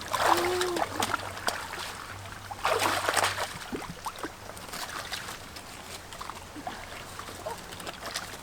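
Water splashing and sloshing in shallow water, in bursts about a second long at the start and again about three seconds in, with smaller splashes after.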